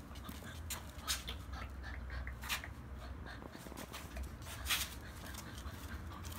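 Eight-week-old Chow Chow puppy moving on tile paving beside a person walking in sneakers, with about three short scuffing noises over a low steady rumble.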